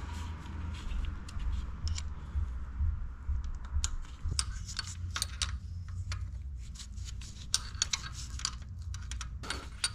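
Small metallic clicks and taps of hand tools, an Allen key and then a wrench, turning a threaded plug and a pyrometer sensor fitting in the ports of a steel exhaust manifold, scattered irregularly over a low steady hum.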